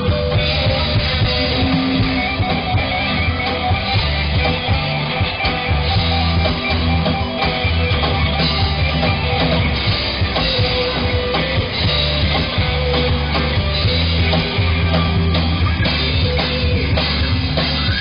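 Live rock band playing electric guitars, electric bass and a drum kit, loud and steady, mostly without singing.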